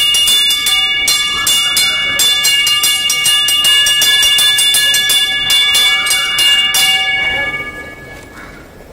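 A street peanut vendor's steam whistle sounding a steady, piercing chord of several fixed tones over a fast ticking rattle. It fades out about seven seconds in.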